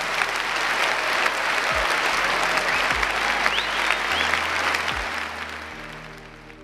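Large audience applauding, a dense steady clapping that fades out near the end.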